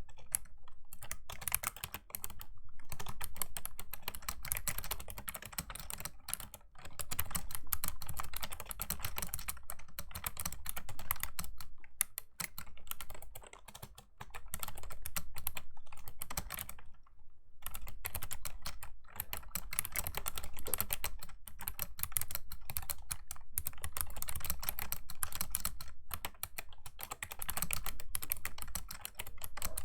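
Fast typing on a Razer Ornata Chroma V2 keyboard's clicky mecha-membrane keys: dense runs of keystroke clicks with short pauses between bursts.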